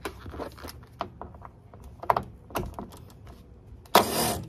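Scattered clicks and knocks as a DeWalt Atomic cordless driver's T50 Torx bit is fitted onto a bolt. Near the end the driver runs in one loud burst of about half a second, turning the bolt.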